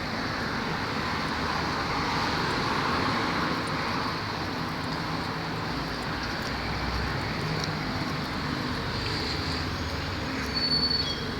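Steady rumble and rush of passing vehicles, swelling over the first few seconds, with a brief high squeal near the end.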